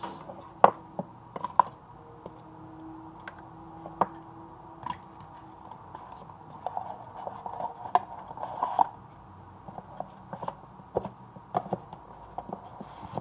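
Stiff cardboard packaging being handled: a fitted box lid slid off and set down, with scattered sharp taps and knocks, scrapes and a stretch of rustling in the middle.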